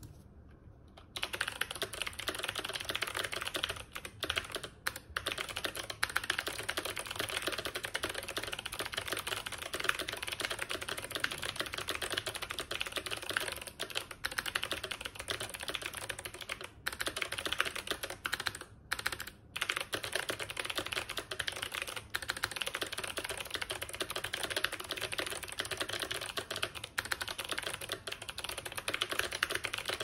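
Fast, continuous typing on a mechanical keyboard with Kailh BOX Jade clicky switches and MT3 PBT keycaps in an all-aluminium ID80 case: a dense stream of sharp key clicks. It starts about a second in, with a few brief pauses.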